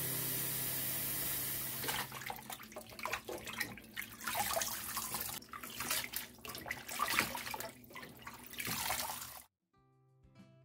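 A tap runs in a steady stream into a stainless steel sink, then water sloshes and splashes irregularly as hands gently rinse young radish greens and cabbage in the filled basin. The water sound cuts off suddenly near the end.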